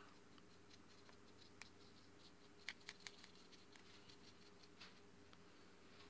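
Near silence: faint room tone with a steady low hum and a few faint, scattered ticks.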